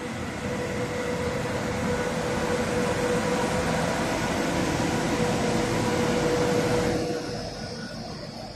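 Adtranz class 220 diesel locomotive passing close by, its engine running with a steady whine over the noise of the train. The sound builds as it comes alongside, then drops off sharply about seven seconds in.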